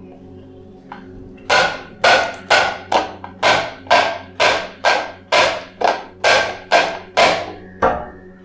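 Hands slapping in turn on a glass tabletop and an upturned plastic bowl, a steady rhythm of about two slaps a second that starts about a second and a half in and runs for some fourteen slaps.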